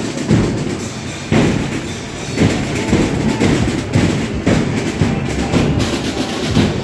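Procession drums beating loudly with a steady pulse of about two strong beats a second, over a heavy low rumble.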